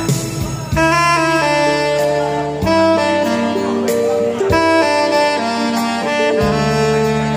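Tenor saxophone playing a slow melody in long held notes, over an accompaniment whose bass and chords change about every two seconds.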